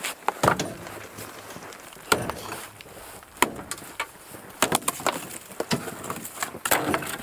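An axe striking a frozen pile of fish, a series of sharp, irregular chopping blows with a splintering crack to them, as the frozen mass is broken apart.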